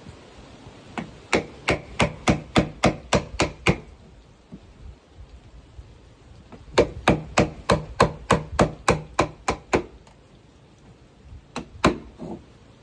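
Hammer blows in quick runs of about ten strikes, roughly three a second, then a pause and a second run, with two more strikes near the end.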